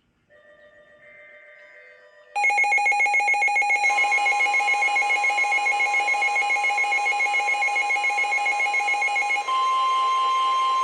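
Weather radio going into alert: a faint beeping starts, then about two seconds in a loud, rapidly pulsing electronic alarm, which gives way near the end to a single steady tone, the NOAA Weather Radio warning alert tone that comes before a new warning.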